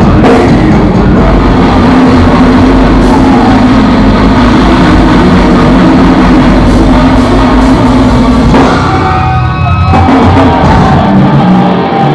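Death metal band playing live at very high volume, heard from inside the crowd: heavy drums, down-tuned guitars and shouted vocals. About nine seconds in, the drums and bass drop out for about a second, leaving a few held guitar tones, and then the full band crashes back in.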